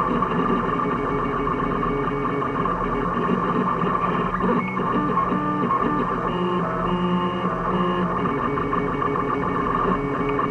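3D printer's stepper motors whining as the print head moves, in steady tones that jump from pitch to pitch with each change of move.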